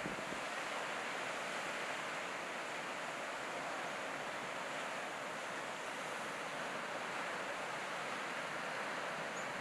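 Heavy ocean surf breaking on the reef, heard as a steady, even wash of noise with no single crash standing out.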